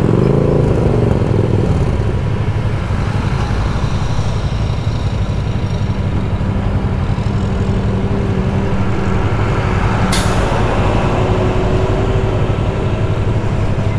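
Road vehicle engines running steadily in traffic. An engine's pitch rises and falls in the first two seconds, and a short sharp hiss sounds about ten seconds in.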